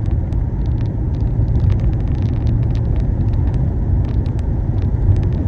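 Car road noise heard from inside the cabin at highway speed: a steady low rumble of tyres and engine, with many small scattered ticks over it.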